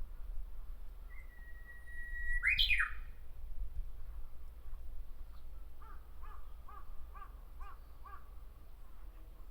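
Japanese bush warbler singing: one long held whistle, then a quick loud sweeping flourish (the 'hoo-hokekyo' song). A few seconds later comes a run of about six short repeated notes.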